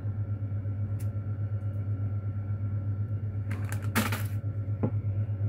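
A steady low hum, like a motor or appliance running, with a couple of faint clicks and a brief rustle about four seconds in.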